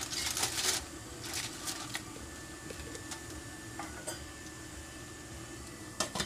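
Aluminium foil crinkling as a foil-covered pan is set down in a stainless steamer pot, followed by a few light clinks over a faint steady hum. About six seconds in comes a sharp clank as the steamer's metal lid is set on.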